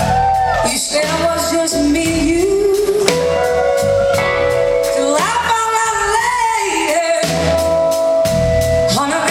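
Live blues-rock band playing: electric guitars and drums with a lead vocal, heard from the audience in a concert hall.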